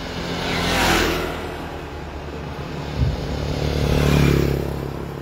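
Road traffic passing close by: one vehicle whooshes past about a second in, then a motor vehicle's engine swells and fades as it goes by near the end, with a single thump just before it.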